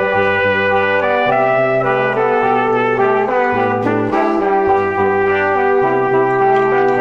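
Background music: brass-led instrumental with held notes over a bass line.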